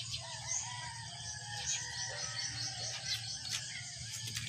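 Faint rooster crowing, with small birds repeatedly chirping high over it.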